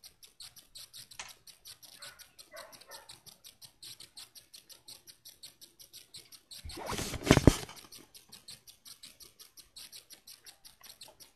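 Rapid, even ticking at about eight ticks a second, steady throughout. A loud burst of rustling noise comes about seven seconds in and lasts under a second.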